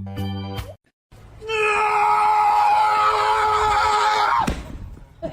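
Keyboard chords in an organ-like tone, then after a brief break a loud scream held at one steady pitch for about three seconds, ending in a quick downward slide.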